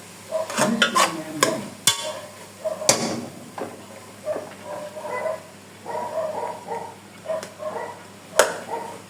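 Cooking utensil knocking and scraping against a pot as rice is stirred in, with several sharp knocks in the first three seconds and one more near the end.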